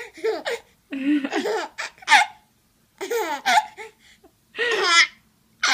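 Baby laughing and squealing in several short, high-pitched bouts with brief pauses between them.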